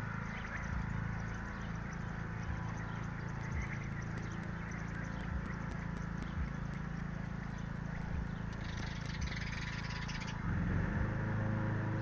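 Faint, quick chirps from songbird nestlings in the nest, over a steady low hum.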